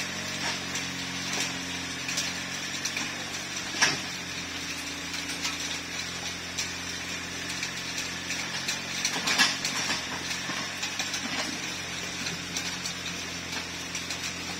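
Mini excavator's engine running steadily while it works a pile of crushed rock, with two sharp knocks, one about four seconds in and one about nine seconds in.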